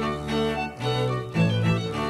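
Instrumental string music: bowed strings playing a slow melody in held notes, with a low line underneath.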